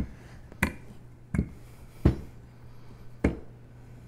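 Wooden rolling pin being pushed back and forth over stiff, chilled gingerbread dough on a stone countertop, giving about five sharp knocks spaced a half second to a second apart.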